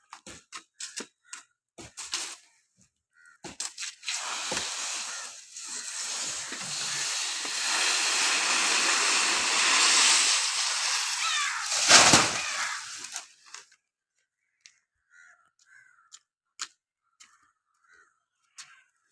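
Coconut palm falling: a long rustling swish of fronds that grows louder over several seconds and ends in one heavy crash, followed by a few faint ticks.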